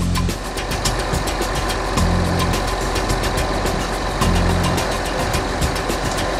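Diesel engine of a telehandler running at idle; its low note swells briefly about every two seconds, over a fine, even clatter.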